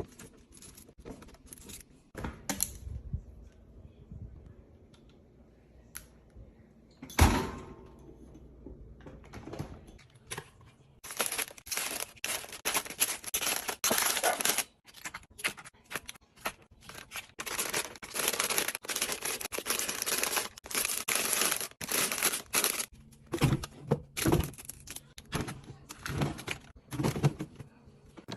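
Snack packaging being handled for a restock: small clicks and taps of items being set down, a single loud knock about seven seconds in, then a long stretch of plastic wrappers and bags rustling and crinkling, ending in more taps.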